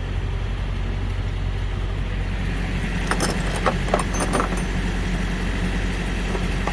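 Steady low hum of an idling engine, with a few quick metal clinks of hand tools, wrench and locking pliers, against the engine about three to four and a half seconds in.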